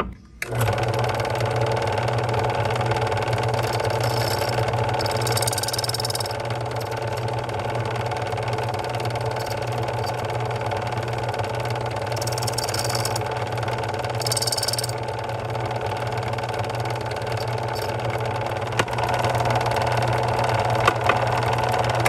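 Electric key-cutting machine's motor starting about half a second in and running with a steady hum, its rotary cutter cutting into a brass barrel key in stages, heard as three short higher-pitched cutting spells.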